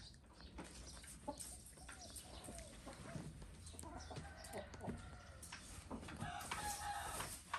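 Chickens clucking faintly in short curved calls, with a longer held call near the end from a rooster crowing.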